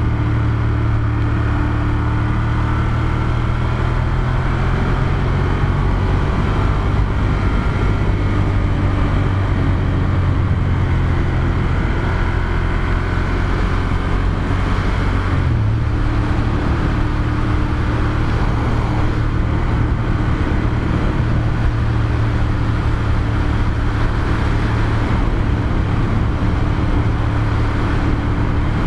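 Ducati Monster 1200S's 1198 cc L-twin engine running steadily under way, with wind and road noise. Its note shifts about halfway through, then settles again.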